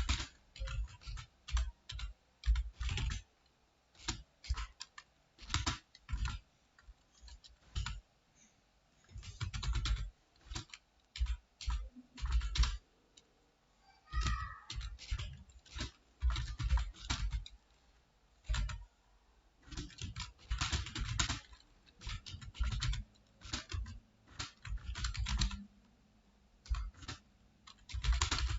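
Typing on a computer keyboard: quick runs of key clicks a second or two long, broken by short pauses.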